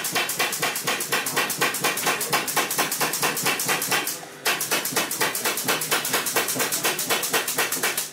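Fur sewing machine running in rapid, even stitches, about seven clicks a second, with a short break about four seconds in before it starts stitching again.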